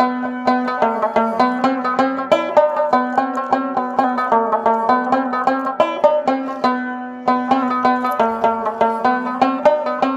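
Background music: a fast plucked-string melody over a steady low drone.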